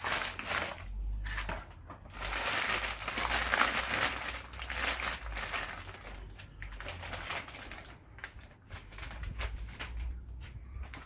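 Rustling and crinkling with light clicks as a new D.I.D X-ring motorcycle drive chain is handled and taken out of its packaging, the rustle loudest over a few seconds near the middle.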